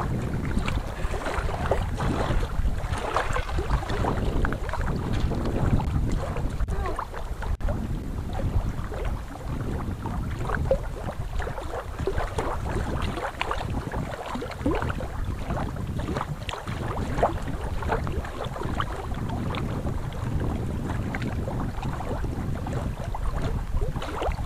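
Wind buffeting the microphone in a steady low rumble, over the rush of water at a weir.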